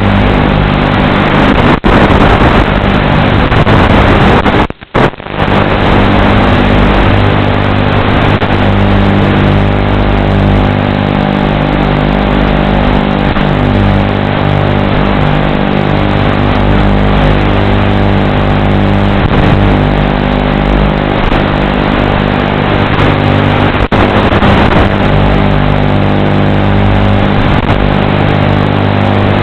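Racing quadcopter's motors and propellers buzzing through the analog video link's audio, with several steady pitches that shift as the throttle changes. The sound cuts out completely for a moment about five seconds in, then returns.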